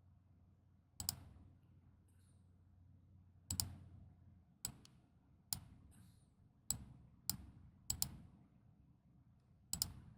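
Computer mouse clicking: about nine separate sharp clicks at irregular intervals, a couple of them quick double-clicks, over a faint low hum.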